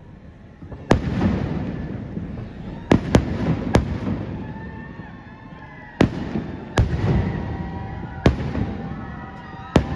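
Aerial fireworks shells bursting overhead: about eight sharp bangs spread irregularly over ten seconds, each trailing off in a long rolling echo.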